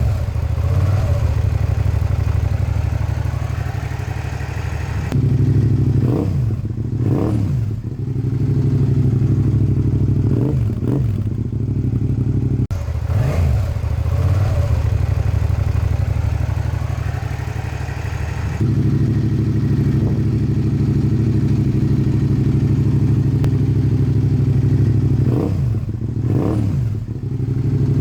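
Suzuki SV650S V-twin engine idling, blipped several times so the revs rise sharply and fall back. The recording cuts between takes a few times.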